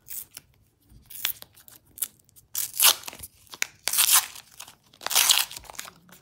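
Paper wrapper of a roll of $2 coins being torn open by hand: a series of short, irregular rips.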